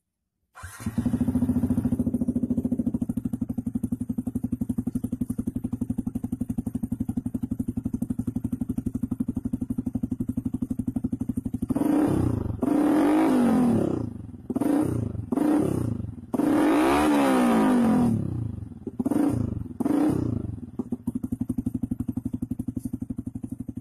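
Yamaha FZ150i's 150 cc single-cylinder four-stroke engine, fitted with an aftermarket exhaust, starting up about half a second in and idling steadily. About halfway through it is revved in a series of throttle blips, about six, two of them held longer, then drops back to idle.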